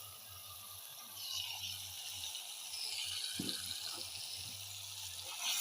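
Hissing and sizzling in a pan of frying onions and tomatoes as pre-boiled beef is added, the hiss swelling about a second in.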